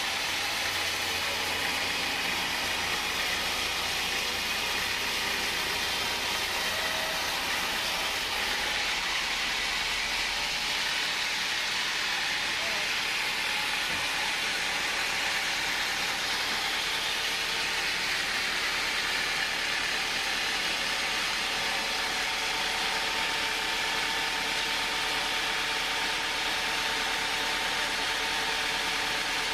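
Band sawmill on a rail carriage running and sawing through a large hardwood log: a steady, even hiss and whine of the blade in the wood, with the machine's motor running underneath.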